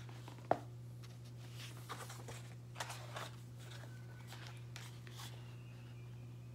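Paper pages of a large picture book rustling as the book is handled and a page is turned, with a sharp tap about half a second in, over a steady low hum.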